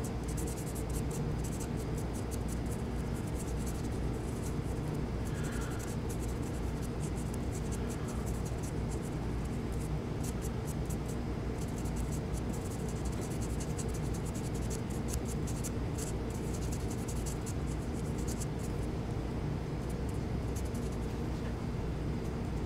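Felt tip of a gun blue touch-up pen scratching and dabbing along metal serrations: a long run of fine, faint scratchy ticks over a steady low hum.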